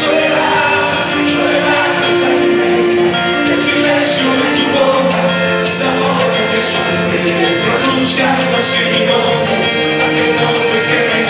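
A live band playing Latin Christian pop: sustained chords with a bright cymbal stroke about once a second.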